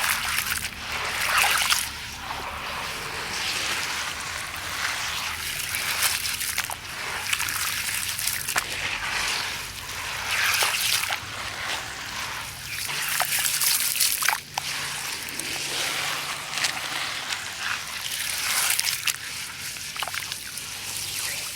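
Sand and concrete chunks crumbling and breaking apart, grains trickling and pattering down, in swells every couple of seconds with a few sharp cracks.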